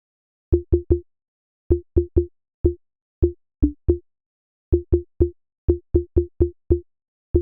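Synthesized water-drop sound from a patch in Bitwig's Poly Grid, an early stage of the patch, triggered again and again: about twenty short plops, each a brief low thump with a short tone on top, in uneven clusters of two to five with dead silence between.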